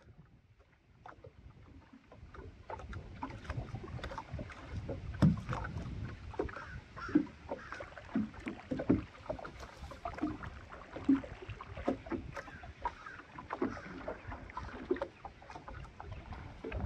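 Paddling in a traditionally built redwood canoe: irregular wooden knocks of paddles against the hull and splashing water over a low rumble. It fades in over the first couple of seconds.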